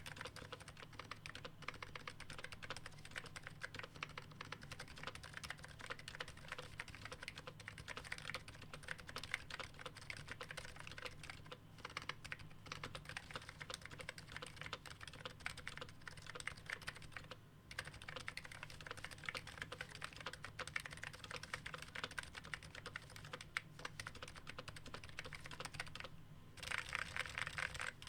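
Continuous fast typing on a Topre keyboard: a dense run of rubber-dome-and-spring key strokes with brief pauses, turning louder and brighter near the end.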